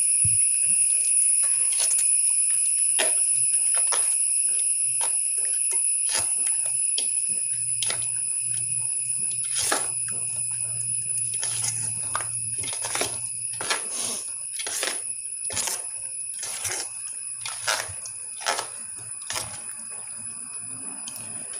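A metal spoon clinking and scraping against a steel pot as hog plums are stirred into thick pickle masala. A steady high-pitched tone runs underneath and slowly fades.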